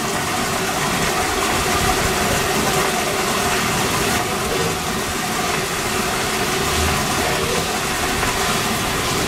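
A steady stream of water pouring from a pipe into a mesh-covered steel drum, splashing without pause, over a faint steady machine hum.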